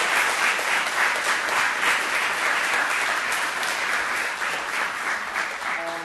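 Audience applauding, dense clapping that eases off slightly near the end.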